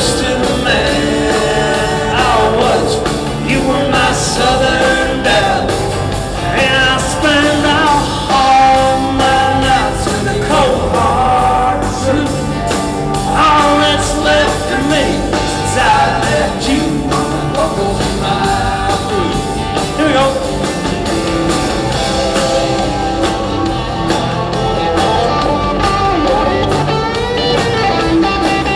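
Country-rock band music with guitars and drums at a steady beat.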